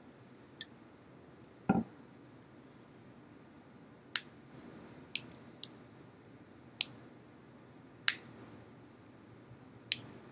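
Scattered short, sharp clicks, about seven over ten seconds at uneven intervals, with one duller, fuller knock a little under two seconds in, over faint room hiss.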